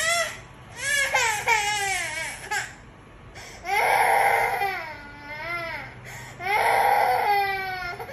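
Toddler crying hard: a string of wailing sobs broken by short catches of breath, with two long, loud wails about four and seven seconds in.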